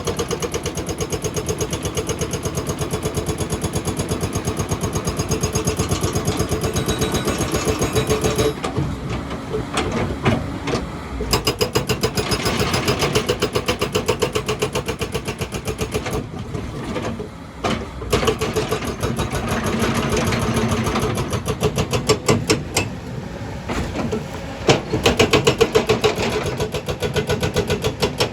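JCB excavator working on rock: its diesel engine runs under load with a rapid, regular pulsing of about four to five beats a second, becoming more uneven about eight seconds in.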